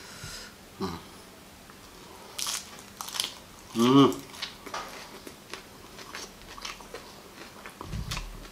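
Biting into and chewing raw agati (Sesbania grandiflora) flowers: crisp crunches and small wet chewing clicks. A short hummed vocal sound comes with a bite about four seconds in, the loudest moment.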